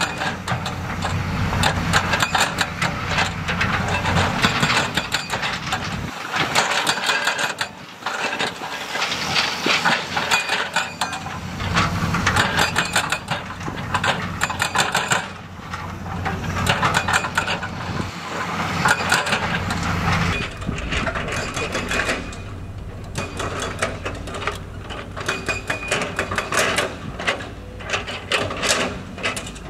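Heavy diesel construction machinery running, with rock clattering and knocking again and again.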